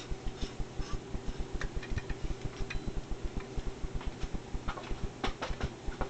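Rapid, even ticking, about six or seven ticks a second, over a steady low hum from the repaired 65 W fluorescent dusk-to-dawn security light's electronic ballast as it is powered up, with a few sharper clicks about five seconds in.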